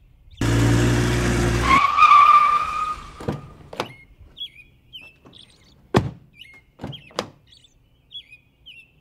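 A road vehicle going past, cut off abruptly, followed by a drawn-out tone that glides slightly upward. Then come about five sharp knocks, with small birds chirping throughout.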